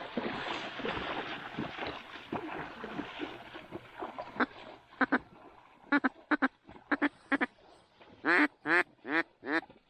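Duck quacking: a run of short, sharp quacks starting about four seconds in, then four longer, louder quacks near the end.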